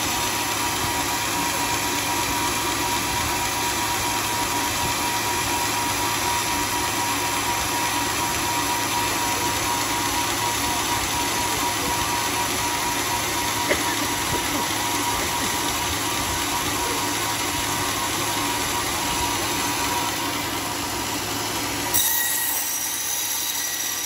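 Homemade band sawmill running steadily, a constant machine drone with a thin whine on top. About two seconds before the end a sharp click comes and the low rumble drops away.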